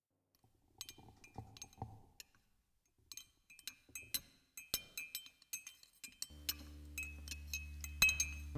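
Light, irregular clinking of glass, some strikes ringing at the same high pitch. About six seconds in, a steady low hum comes in underneath.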